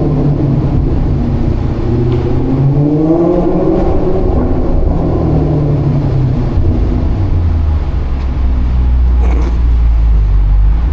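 Maserati GranCabrio's Ferrari-derived 4.7-litre V8 under way, its exhaust note climbing in pitch about three seconds in, then settling into a steady low drone.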